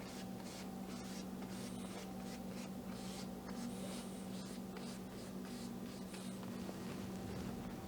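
Paintbrush loaded with acrylic paint stroking across a canvas: a series of short dry swishes, about one or two a second, over a steady low hum.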